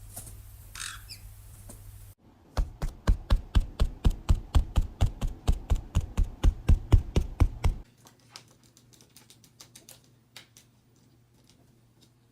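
A caique parrot gives a short squawk, then hops along a hard surface, its feet landing in a fast, even run of thumps about four or five a second for roughly five seconds, followed by a few faint taps.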